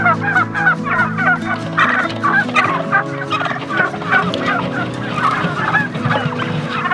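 A flock of white domestic turkeys calling, many short overlapping calls several a second.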